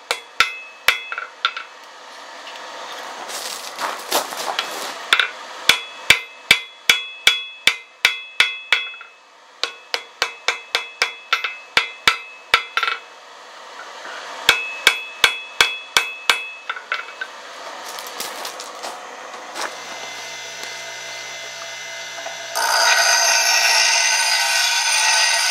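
Hand hammer striking red-hot steel on an anvil in quick runs of blows, the anvil ringing with each strike: a tomahawk head being forged from a horseshoe rasp. Near the end it gives way suddenly to a DeWalt bench grinder running steadily with the steel blade pressed against its wheel.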